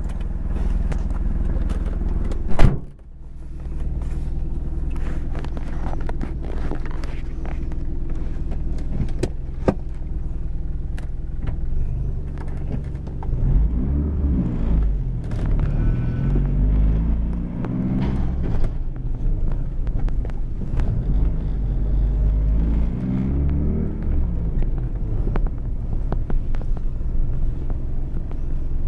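Mazda RX-7 FD3S twin-turbo 13B rotary engine running, heard from inside the cabin: a steady idle, then the revs rise and fall several times in the second half. A single loud thump sounds about three seconds in.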